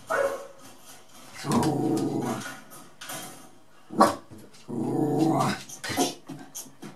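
Small dog growling at animals on a television screen: two drawn-out growls of about a second each, with short, sharp barks around and between them.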